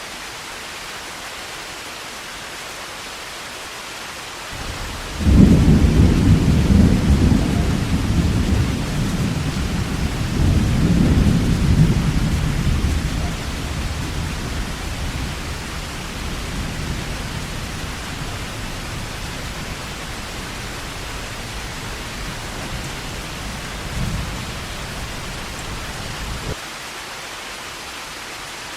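Steady heavy rain hiss. About five seconds in, a long low rumble of thunder breaks in loudly, swells again a few seconds later, then slowly dies away and cuts off abruptly near the end.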